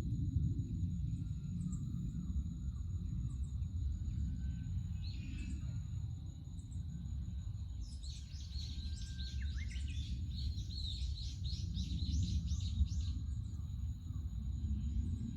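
Forest ambience: a bird sings a rapid run of repeated notes for about five seconds in the middle, after a brief call a few seconds earlier. Under it is a steady low rumble and a thin, steady high whine.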